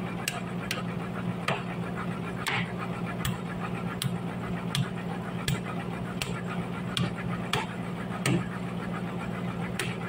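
Hammer blows on a wooden post at a steady pace, about one strike every three-quarters of a second, over the steady low hum of sawmill machinery running.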